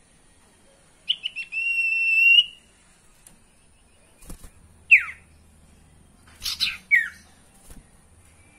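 Caged sirtu songbird calling: a few quick notes run into one long, held whistle about a second in, then a single falling whistle, and near the end a burst of harsh notes ending in another falling note. A light knock comes between the calls.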